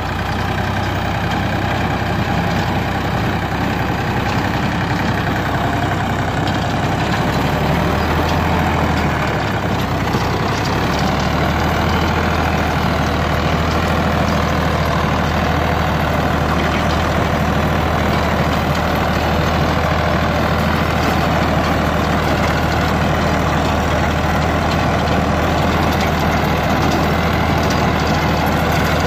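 Tractor diesel engine running steadily under load while pulling a rotavator, on a test pass to check the load and for leaks. The engine note shifts slightly about eight to eleven seconds in, then holds steady.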